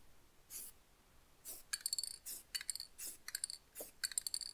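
Aerosol spray paint can: two short hisses of spray, then the mixing ball clinking and rattling inside the can as it is shaken in quick bursts of several strokes.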